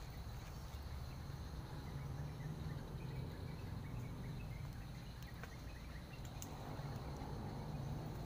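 Outdoor ambience: a steady high insect drone over a low rumble, with a few faint clicks.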